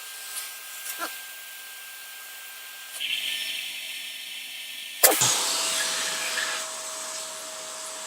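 Household vacuum cleaner running steadily while its nozzle is worked over a beard to suck the hair off. Its tone shifts about three seconds in. A sharp knock comes about five seconds in, after which the motor holds a lower steady tone.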